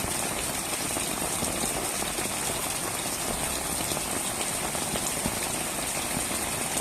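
Heavy rain pouring steadily, a dense even hiss filled with countless small drop ticks.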